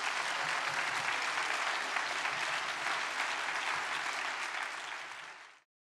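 Audience applauding steadily; the applause fades and then cuts off abruptly near the end.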